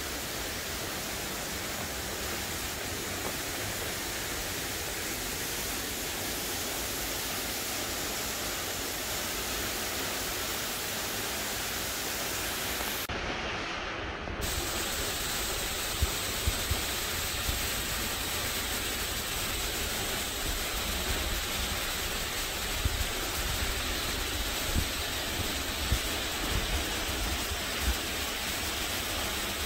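Steady rushing of a nearby waterfall, an even hiss-like roar of falling water, briefly muffled about halfway, with scattered low thumps in the second half.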